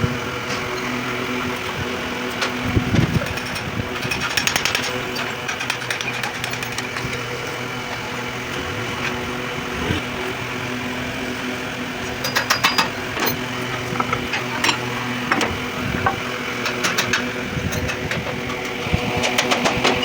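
Steady machine hum with intermittent metallic clicks and taps, typical of hand work on car parts in a workshop.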